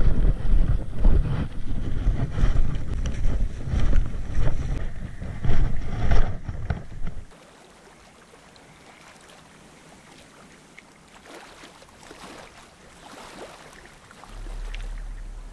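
Wind buffeting the microphone with a loud, rough rumble that stops suddenly about seven seconds in, followed by a much quieter stretch with faint scattered ticks and a low hum near the end.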